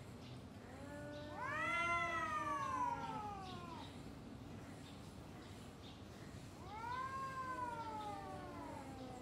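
Two cats caterwauling at each other in a standoff, the threat yowling cats make before a fight. There are two long, drawn-out yowls, the first rising and then slowly falling, the second starting near the end and gliding down. A lower moan runs beneath each.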